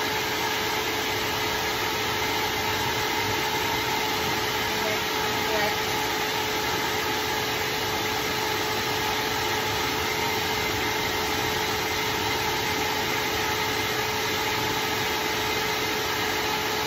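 Pet grooming dryer blowing air steadily: a constant rush of air with a steady hum.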